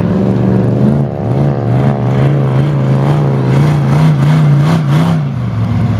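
Monster truck engine running under throttle as the truck drives across a dirt field. Its pitch drops about a second in, then climbs slowly, wavering up and down as the revs rise and fall.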